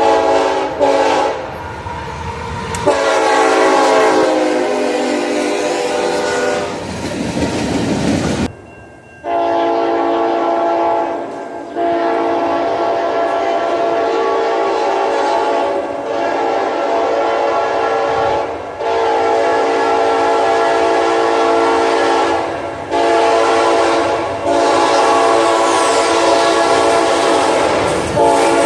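A locomotive's Nathan Airchime K5HLA five-chime air horn sounding its chord in a series of long blasts with short breaks, over the rumble of the train on the rails. In the first blasts the notes slide down in pitch. The sound breaks off abruptly about eight seconds in, and the horn sounds again.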